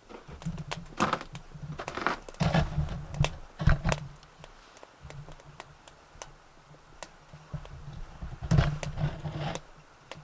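Twig and stick fire in a biomass stove's firebox crackling and popping irregularly, with a few louder bursts of crackle, over a low intermittent rumble.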